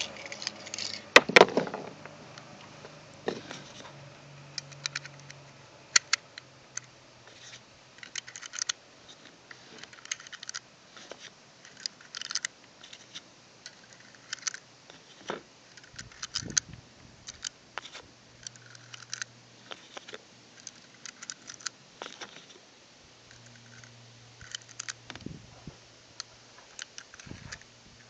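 9mm cartridges being pressed one by one into a 1911 pistol magazine, with small irregular metallic clicks every half second to a second. A single sharp clack about a second in is the loudest sound.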